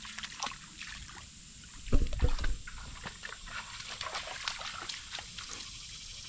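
Water sloshing and rustling in a flooded rice field, with many short splashy crackles and one heavy low bump about two seconds in.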